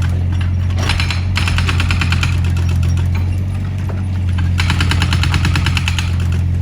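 Excavator's diesel engine running steadily with a deep drone. It is overlaid by bursts of rapid, evenly spaced metallic clattering, one about a second in and a longer one near the end.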